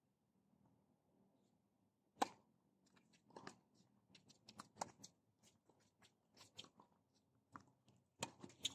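Tennis rally on a hard court: sharp, irregular clicks and crackles of racket-on-ball hits and shoes scuffing, starting about two seconds in over near silence, the sharpest click about two seconds in.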